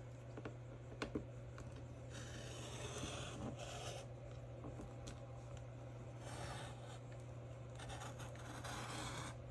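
Faint rubbing and scraping of paper against paper-crafting tools as an edge is trimmed for a border, in a few stretches, with two small clicks about a second in. A low steady hum runs underneath.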